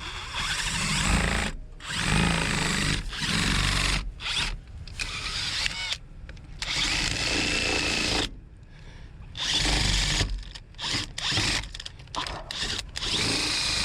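Cordless power drill running in short repeated bursts with brief pauses, drilling into a trailer kingpin lock.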